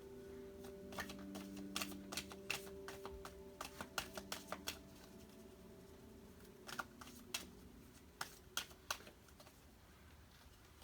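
Tarot cards being handled and laid down: a run of light, sharp clicks and taps, clustered in the first few seconds with a few more later.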